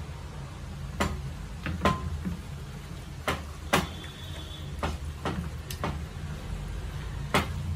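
Hands rubbing spice paste into fish pieces in an earthenware pot, with about seven irregular sharp knocks and clicks as the hands and the clay pot knock against each other.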